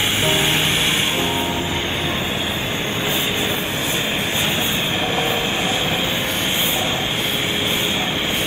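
Gas torch burning with a steady rushing noise as it heats a radiator's brass top tank for soldering. A music track fades out about a second and a half in.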